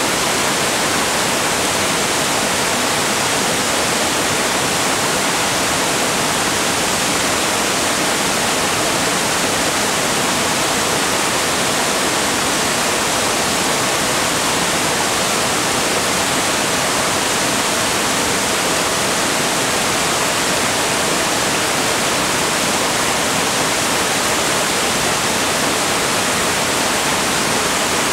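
Barron Falls in full flood: a steady, unbroken hissing rush of heavy water pouring over the falls.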